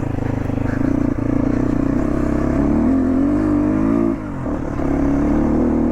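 Motorcycle engine running as the bike climbs a rough dirt road. The revs rise about three seconds in, drop off briefly just after four seconds, then settle back to a steady pull.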